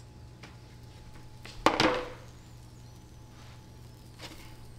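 A sharp metallic clank with a brief ring about two seconds in, a faint click before it and a lighter knock near the end, over a low steady hum: metal kitchenware handled at the oven while roasting sweet potatoes are checked.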